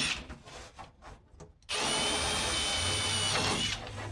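Power drill boring out holes in Velcro-faced plastic washers to clear larger machine screws, running in two short whining bursts: one stops just after the start, the next runs from about two seconds in to near the end, with small handling clicks between.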